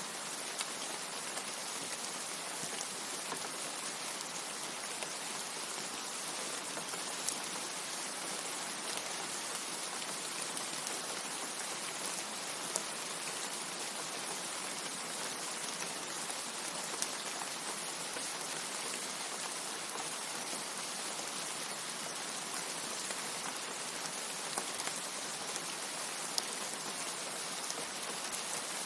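Steady rain falling: an even hiss with scattered sharper drop ticks here and there, and no thunder.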